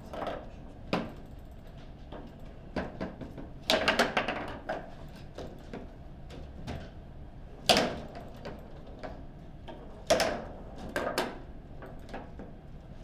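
Foosball table in play: the ball and rods knocking against the table's figures and walls in a handful of sharp, separate knocks a few seconds apart, the loudest near the middle.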